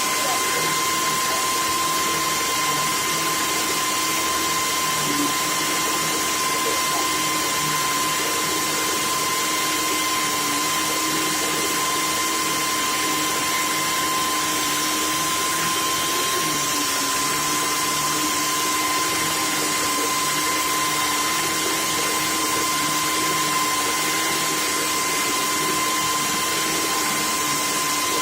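Vacuum cleaner running steadily: a constant motor whine over a rush of air, holding the same pitch and level throughout.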